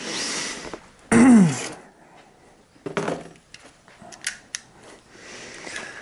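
Several light dry clicks of a cap gun's hammer on caps that fail to go off, which the shooter puts down to wet powder. A short grunt falling in pitch comes about a second in.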